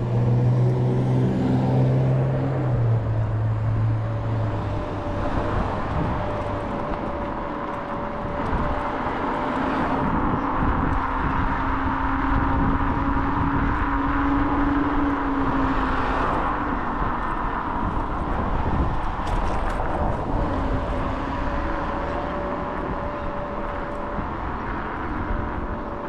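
Riding noise from a Kaabo Wolf King GT electric scooter: wind rushing over the chest-mounted camera's microphone and road noise, with a motor whine whose pitch rises and falls with speed. A low hum stands out in the first few seconds.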